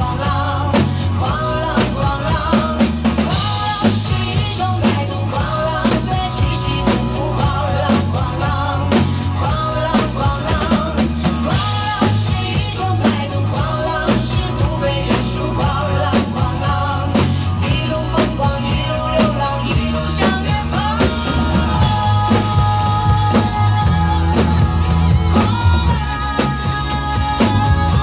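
Two acoustic drum kits played together along with a pop backing track that has a singing voice, with cymbal crashes about three and a half, twelve and twenty-two seconds in.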